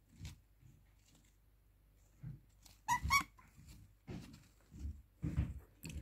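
Faint soft calls from a pet parrot: scattered low murmuring sounds and a short two-note chirp about three seconds in.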